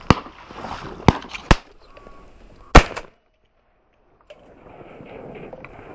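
Shotgun shots at ducks: four sharp reports, one right at the start, two about half a second apart around a second in, and the loudest nearly three seconds in.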